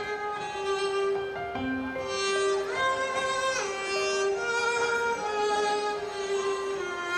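Slow music led by a violin playing long held notes over a steady sustained lower note, with a pitch slide up and back down about three seconds in.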